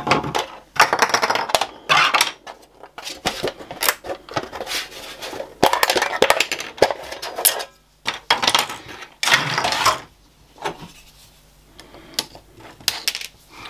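3D-printed plastic parts being popped off a flexible printer build plate and set down on a bench: irregular clicks, snaps and clatter, with a handheld scraper working the plate near the end.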